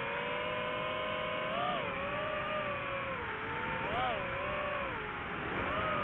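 Quadcopter drone's propellers whining steadily, the pitch briefly rising and dropping back about three times.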